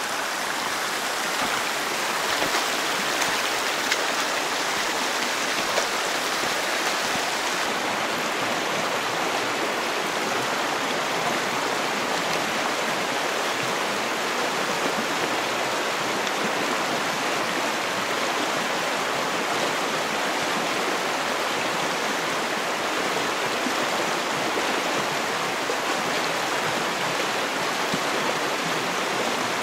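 Mountain stream rushing over rocks in a canyon: a steady, even rush of water.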